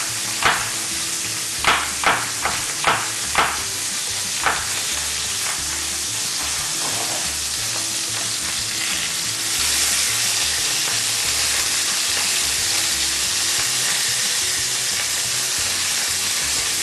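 Oxtail pieces sizzling steadily as they sear in oil in a stainless steel frying pan, with a handful of sharp knocks in the first few seconds. The sizzle grows louder and hissier about ten seconds in, as the pieces are worked with tongs.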